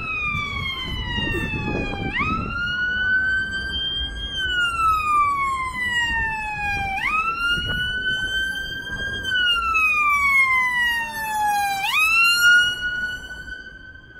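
Ambulance siren on a slow wail, three cycles about five seconds apart: each jumps up sharply in pitch, climbs a little more, then falls away slowly. Traffic and street noise run underneath.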